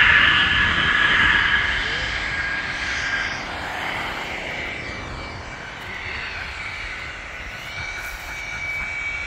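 Aircraft flying past: a steady high whine over a rushing engine noise, loudest at the start and fading away over the first few seconds. A second high engine tone comes up near the end.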